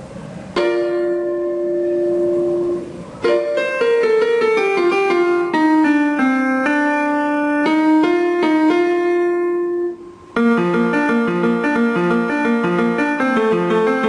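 Electronic keyboard with a piano tone, played through a small portable Bluetooth speaker. A held chord comes first, then a slow falling line of notes. After a short break about ten seconds in, a quicker repeating chord pattern begins.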